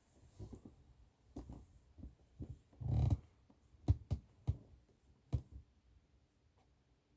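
A sleeping person snoring: one heavy snore about three seconds in, with softer low breathing sounds around it. Several sharp clicks follow in the second half.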